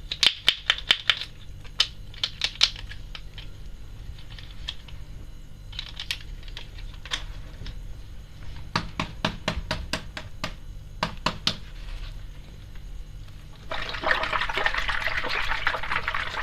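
Sharp plastic clicks and taps from toys and water bags being handled, a quick run of them at the start and scattered ones after. Water pours or splashes in the last few seconds.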